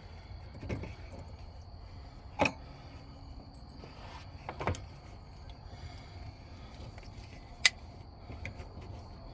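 Scattered knocks and clicks of hand tools working a spring clamp off a truck's power steering hose: a few dull knocks and one sharp metallic click about three-quarters of the way through.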